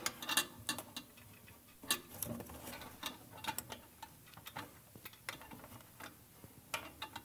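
Irregular small metallic clicks and scrapes of a brass pipe fitting being turned by hand onto the threaded bottom connection of an E61 brew group, with the thread reluctant to catch.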